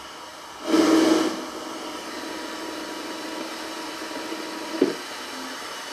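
FM radio tuner module playing through a small power amplifier's speaker: a loud burst of static hiss about a second in, then quieter hiss with a steady low whine, and a sharp click near five seconds.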